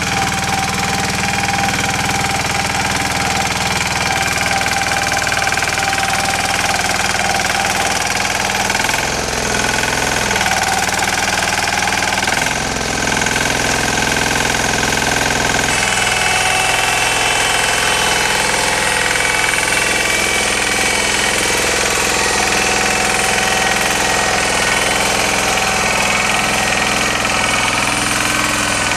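Yağmur YET-510 walk-behind motor hoe running steadily under load as its rotary tines churn through garden soil, its note shifting slightly about sixteen seconds in.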